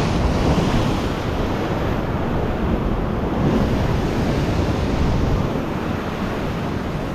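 Ocean surf breaking on the edge of a rock ledge and washing across it in a steady rush, with wind buffeting the microphone.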